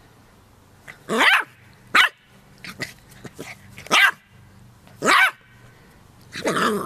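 A puppy giving short, high yapping barks, five in all, the last one longer and more drawn out near the end.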